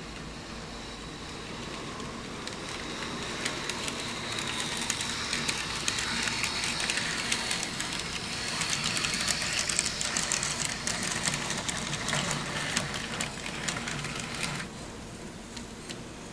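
N scale model trams running on the layout track: the small electric motor whines and the wheels click rapidly over rail joints and turnouts. The sound grows louder over the first few seconds, stays loud through the middle, then falls away sharply near the end.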